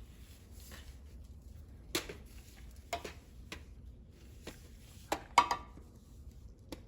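Scattered light clicks and knocks of work-handling noise, about six of them, the loudest about five and a half seconds in, over a faint low hum.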